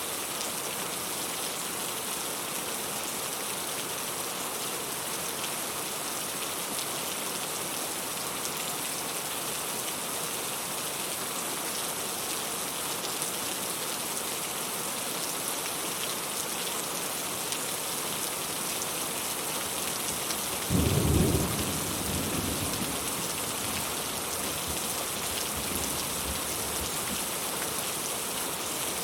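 Steady rain, a constant hiss, with a sudden loud clap of thunder about three-quarters of the way through that rumbles low and fades over a few seconds.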